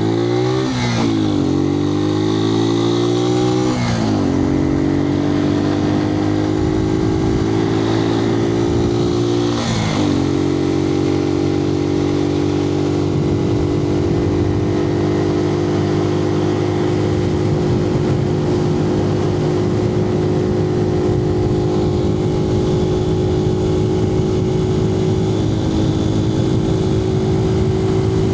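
Suzuki TU250X's single-cylinder engine pulling away under acceleration, heard from inside the rider's helmet. It revs up and drops back with three upshifts in the first ten seconds, then settles into a steady cruise.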